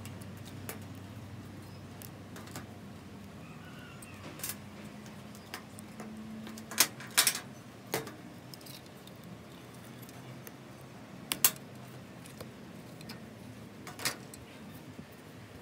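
Small sharp clicks and taps of metal tools and phone parts being handled, about eight scattered through the stretch, a couple in quick pairs, over a faint steady hum.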